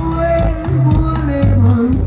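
Latin band music playing: a stepping bass line under held melody notes, with quick percussion ticks.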